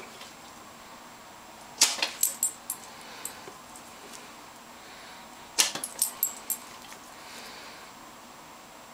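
A German shepherd's collar tags jingling and clicking in two short bursts, about two seconds in and again near six seconds, with quiet between them.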